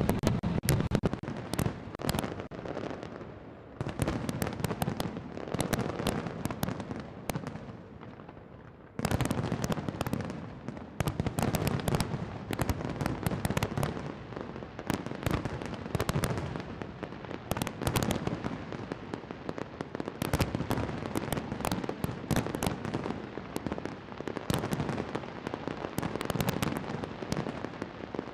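A fireworks display: many shells bursting in rapid succession, with bangs and crackling. It thins out a few seconds in, then comes back loud and dense all at once about nine seconds in.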